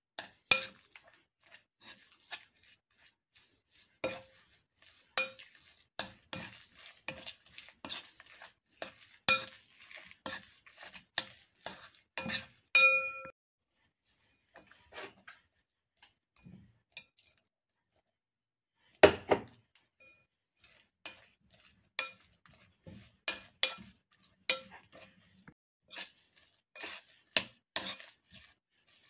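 A spoon clinking and scraping against a ceramic bowl while mixing dough: irregular clinks about once or twice a second, each ringing briefly. There is a quieter pause in the middle, then a louder knock about two-thirds of the way in, and the clinking resumes.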